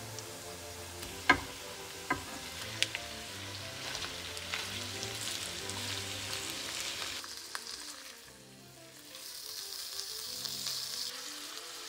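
Food sizzling in a hot frying pan, with a few sharp clicks of a utensil against the pan in the first three seconds, over background music. The sizzle dies down about eight seconds in and picks up again a second later.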